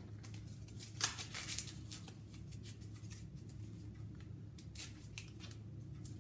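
Masking tape being pulled off the roll and torn, short crackling rips about a second in and again near five seconds in, over a faint steady low hum.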